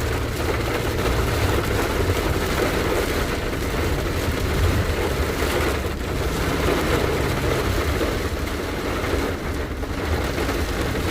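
Heavy rain falling on a car's roof and windshield over the steady low rumble of the vehicle, heard from inside the cabin.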